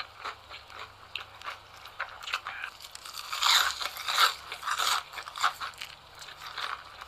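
Close-miked crunchy biting and chewing of cheese sticks: a run of crisp crunches, loudest in a cluster about halfway through.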